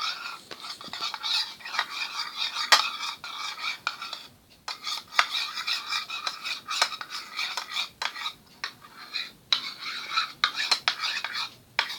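A spoon stirring glue and food colouring in a bowl, clicking and scraping against the sides in quick irregular strokes, with a few short pauses.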